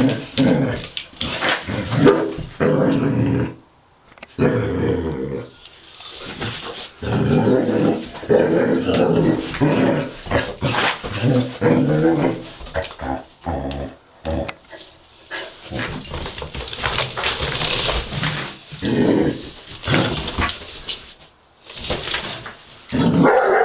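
Basset hound play-growling at a toy, in long bursts broken by short pauses.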